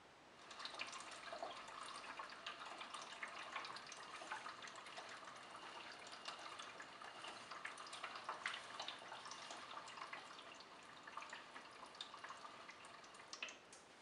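Water sloshing and splashing inside the water-filled drum of a Miele W1 toy washing machine as the drum turns, a quiet patter of small irregular splashes. It starts about half a second in and stops shortly before the end.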